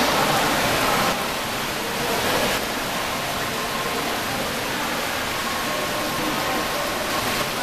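Carved stone fountain's water falling and splashing into its basin, a steady rush.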